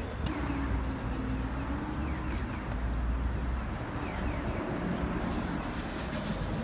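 Busy street ambience: a steady low rumble of traffic with faint voices in the background.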